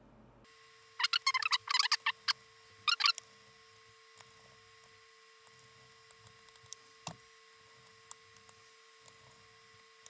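Two bursts of fast, sharp clicks and rattles in the first few seconds, then scattered single ticks, from small laptop parts being handled and fitted back together. A faint steady hum runs underneath.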